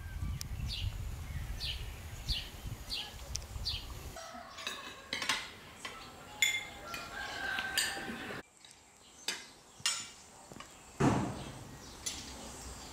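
A bird calling in short, repeated falling chirps over a low wind rumble, then spoons and forks clinking and scraping on china plates during a meal, with a sharper knock about eleven seconds in.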